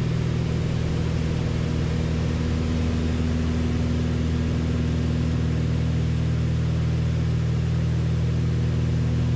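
Cabin drone of a Beechcraft Baron B55's two six-cylinder piston engines and propellers in steady cruise flight: an even, constant hum made of several steady low tones.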